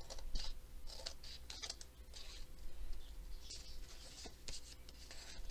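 Scissors trimming the edge of a folded manila file folder: a string of short snips, each a brief rasp with a small click of the blades.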